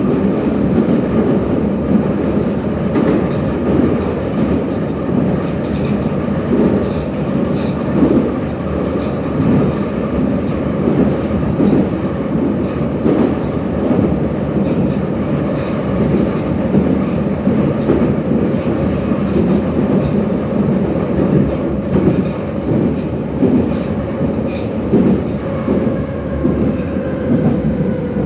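Metro train of the 81-717 type running at speed through a tunnel, heard from inside the car: a steady rumble with uneven clatter of the wheels over the rail joints. Near the end a motor whine drops slightly in pitch as the train begins to slow.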